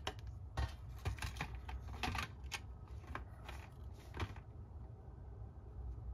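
A run of quick, light clicks and taps of a paintbrush working against a watercolour palette while picking up paint, stopping about four seconds in.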